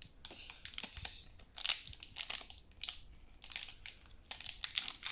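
Toy packaging being crinkled and torn open by hand, in irregular rustling bursts.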